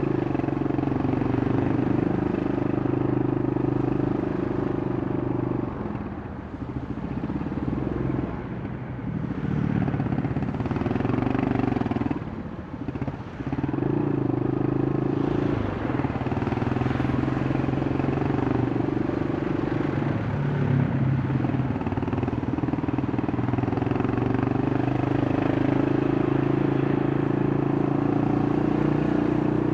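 Yamaha Scorpio single-cylinder four-stroke engine and exhaust running under way, heard from the rider's position; the throttle eases off briefly three times, about 6, 9 and 12 seconds in, and the engine note drops before pulling steadily again.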